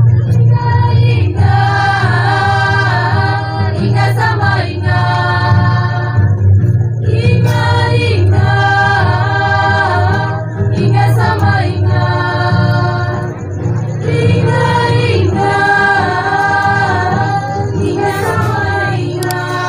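A group of girls singing together in short sung phrases that recur every three to four seconds, over a steady low hum.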